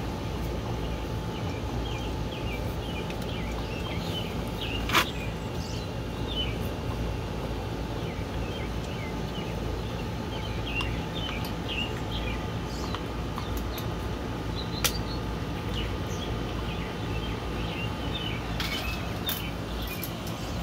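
French bulldog puppy licking and chewing ice cubes on concrete, with two sharp crunches about five and fifteen seconds in and a few more near the end. Birds chirp over a steady low hum.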